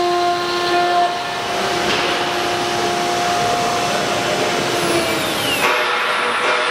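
CNC wood router's spindle running and cutting a wood panel: a loud steady whine over a dense cutting hiss. About five seconds in, a high tone falls in pitch, and the sound changes abruptly just after.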